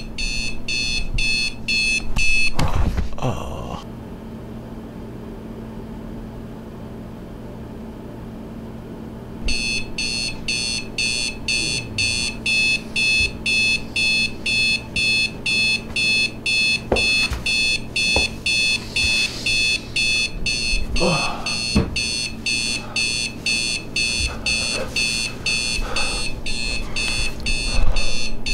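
Electronic alarm clock beeping in rapid, evenly spaced pulses, a few a second. A couple of thumps come about three seconds in and the beeping stops, then it starts again some six seconds later and keeps going, over a steady low hum.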